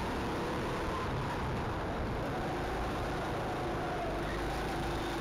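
Go-kart engine running as the kart drives the track: a steady drone with faint tones that drift slightly up and down in pitch.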